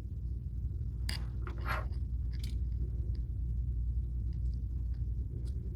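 A few light clicks and scrapes as the small plastic parts of a faucet aerator are handled, over a steady low hum.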